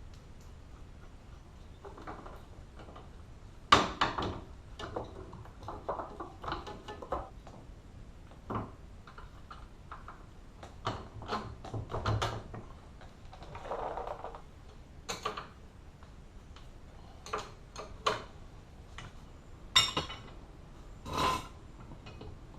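Irregular metal clinks and clanks of hand tools and steel parts being handled during hub reassembly, with a sharp knock about four seconds in and a brief ringing clink near the end.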